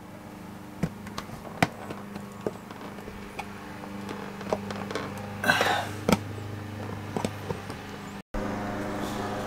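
A knife blade prying at a plastic rocker switch in an RV wall control panel: several sharp clicks and a short scrape as the switch is worked loose. A steady low motor drone runs underneath.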